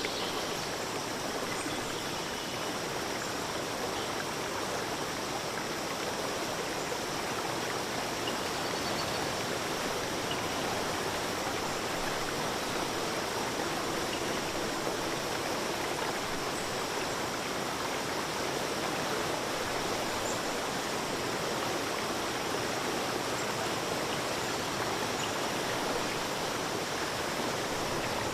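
Stream water running steadily, an even rush with no breaks.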